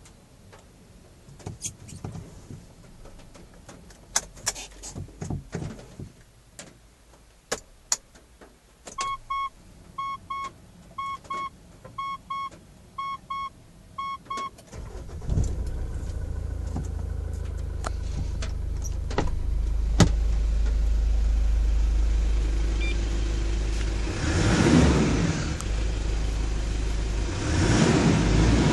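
Scattered clicks of dashboard buttons, then an electronic chime beeping in pairs for about five seconds. About halfway through, the Mitsubishi Pajero's engine starts and runs steadily at idle, with two louder rushing swells near the end.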